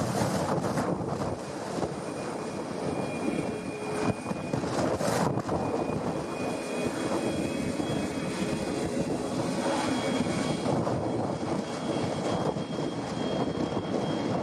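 Boeing 737 MAX 8 jet airliner's CFM LEAP-1B turbofan engines running, a steady rush of jet noise with several steady whining tones over it. Wind gusts buffet the microphone in the first second and again about five seconds in.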